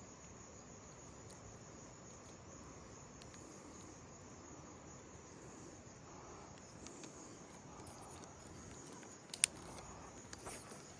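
Insects chirring in a steady, faint, high-pitched drone, with a sharp click about nine seconds in.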